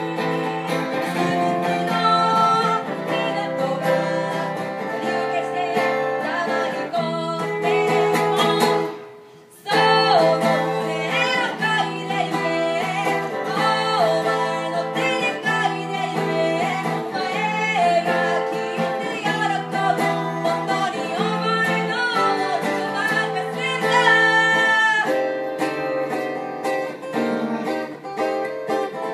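Live acoustic song: a voice singing a melody through a microphone and PA over a strummed acoustic guitar, with a short break about nine seconds in.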